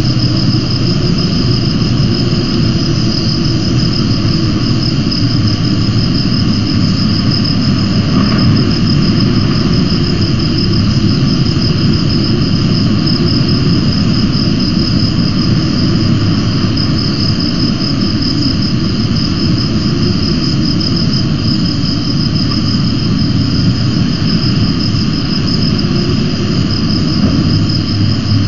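Steady outdoor background noise picked up by the nest camera's microphone: a constant low rumble, like wind on the microphone, with a continuous high insect-like trill above it.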